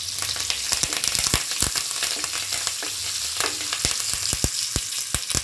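Cumin seeds and curry leaves sizzling in hot oil in a kadai, with repeated light knocks of a plastic spoon stirring them.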